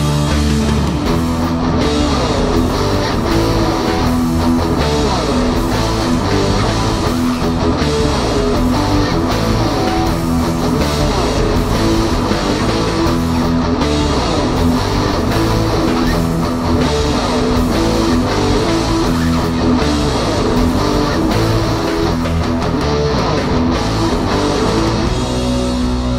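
Rock music led by guitar, playing steadily throughout.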